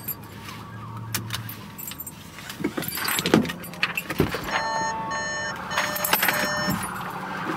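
Keys jingling and clicks and rustles of someone moving about in a car seat, then about four and a half seconds in a steady electronic warning chime from the car begins and keeps sounding.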